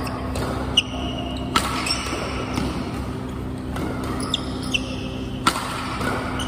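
Badminton rackets hitting a shuttlecock during a rally: three sharp strikes, two close together about a second in and one near the end, with a few fainter taps between. A steady low hum runs underneath.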